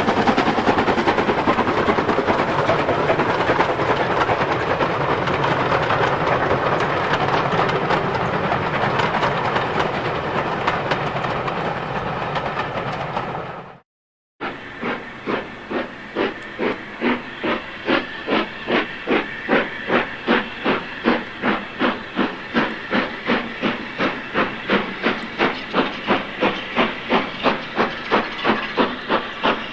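Steam locomotive working hard with a continuous roar of exhaust and steam hiss; after a cut, a steam locomotive pulling away with evenly spaced exhaust beats, about two a second.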